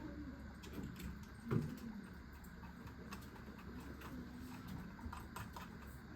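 Quiet room with scattered light clicks and taps of typing, under faint distant voices; one louder knock about one and a half seconds in.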